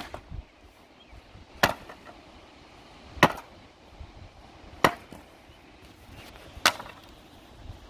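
Five hard strikes of a swung tool against a wooden pallet, knocking its boards apart, evenly spaced about a second and a half apart.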